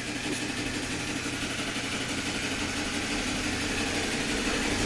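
Steady machinery hum with a low, pulsing tone over a hiss, growing slowly louder.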